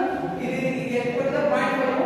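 Several voices answering together in drawn-out, chant-like words, like a classroom replying in chorus.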